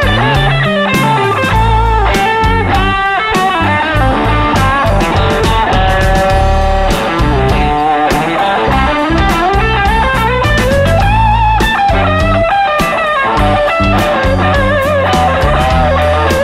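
Blues band playing an instrumental break: an electric guitar lead with bent and wavering notes over bass guitar and a steady drum beat.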